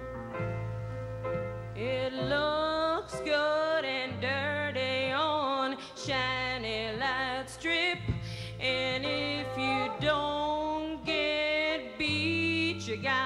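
A woman singing long held, bending notes with wide vibrato over sustained piano chords, in a live performance. The voice comes in about two seconds in, over the chords.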